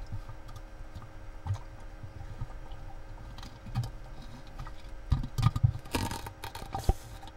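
Underwater recording through a homemade camera housing: irregular clicks and knocks over a low rumble of moving water, as the housing is handled and brushes through submerged branches. A cluster of louder knocks and rustles comes about five to seven seconds in.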